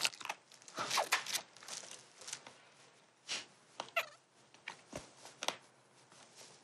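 Close-up eating sounds of spicy chicken feet being chewed and sucked off the bone: scattered short lip smacks, slurps and small clicks, with a couple of brief squeaky mouth noises.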